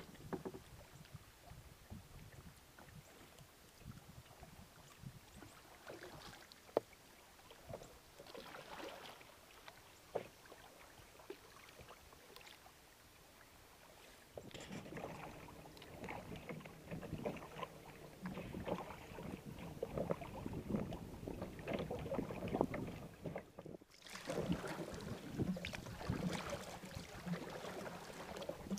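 Kayak paddling: paddle blades dipping and splashing and water lapping against the hull, with scattered knocks and some wind on the microphone. The splashing gets louder and busier about halfway through.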